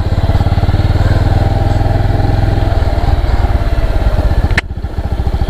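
Motorcycle engine running under way as the bike rides along, a steady fast pulsing. About four and a half seconds in there is a sharp click and the engine note drops suddenly, then carries on more quietly.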